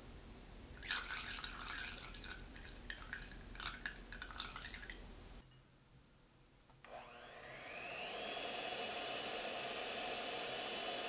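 A few clicks and scrapes, then, after a short pause, an electric hand mixer starts up. Its motor whine rises in pitch over about a second and then runs steadily.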